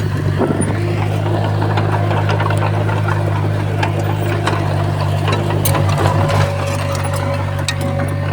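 Crawler bulldozer's diesel engine running steadily under work, with scattered clanks and knocks from the tracks and blade.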